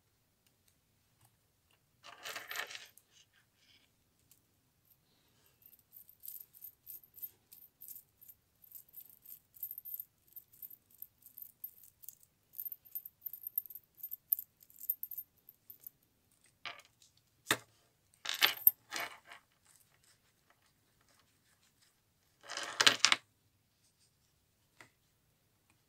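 Silver charms on a Pandora bracelet jingling and clinking lightly against each other as the bracelet is handled and dangled, with a cluster of sharper clicks later on. Two brief louder handling noises come about two seconds in and near the end.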